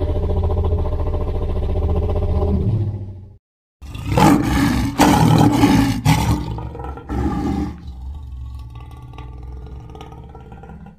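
A human voice doing an impression of a large dinosaur-like creature roaring. It opens with a long, low growl of about three seconds, stops briefly, then gives several loud, harsh roars in quick succession. These trail off into a quieter, rasping growl that ends abruptly.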